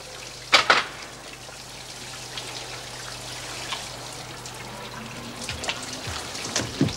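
A shower running: water spraying steadily from an overhead shower head. Two sharp knocks about half a second in.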